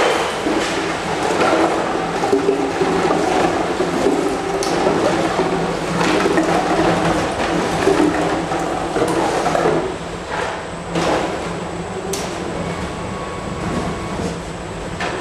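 Plastic bottles rattling and crinkling, with a steady machine hum underneath. The rattling dies down about ten seconds in, leaving the hum.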